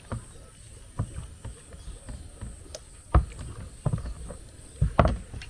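Irregular dull knocks and thuds, the loudest about three seconds in and a quick cluster of three about five seconds in.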